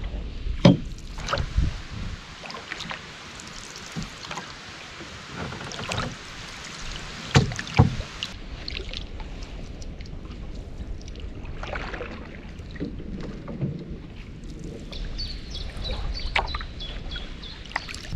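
Double-bladed paddle dipping and pulling through calm river water beside a canoe, with splashes and drips. There are a few sharp knocks, one about a second in and two close together near the middle, and some faint high chirps near the end.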